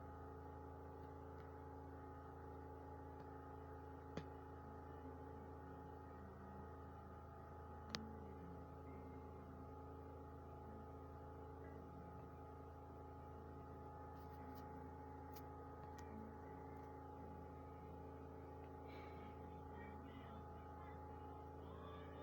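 Steady electrical hum made of several held tones, with two sharp clicks, one about four seconds in and a louder one about eight seconds in.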